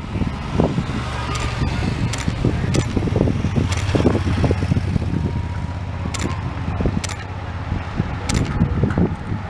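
Steady low rumble of motor vehicle engines along a road, with scattered sharp clicks at irregular intervals.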